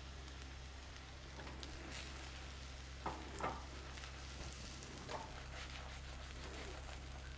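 Noodle-and-egg omelette frying in oil in a wok, a faint steady sizzle, with a few light knocks about three seconds in and again near five seconds.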